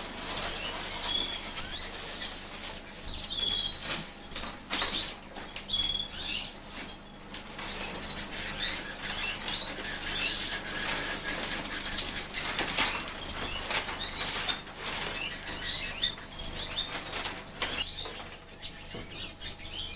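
Young Fife Fancy canaries chirping with many short, high calls, while their wings flutter and rustle repeatedly as they hop and fly about.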